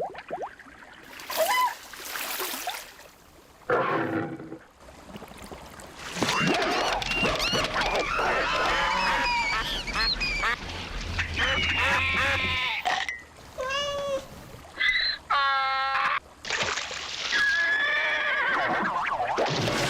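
A string of dubbed animal sound effects in place of voices: honking and quacking calls like geese and ducks, mixed with other short pitched cries, with brief pauses between bursts.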